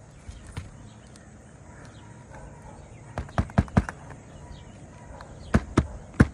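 Hammer driving roofing nails into a shingle: a quick run of four blows about three seconds in, then three more near the end. The nails go in easily, which the roofer takes as a sign of soft roof decking.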